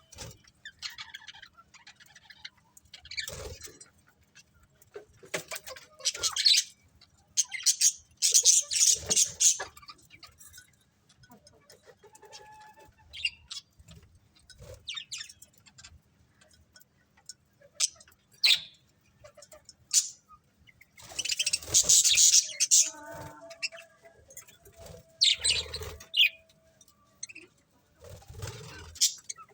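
A flock of pet budgies chirping and chattering in irregular bursts, with louder flurries of chirps about a quarter of the way in and again about two-thirds of the way through.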